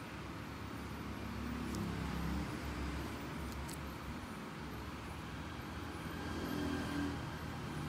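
Steady low background rumble and hiss, with two faint clicks a couple of seconds apart.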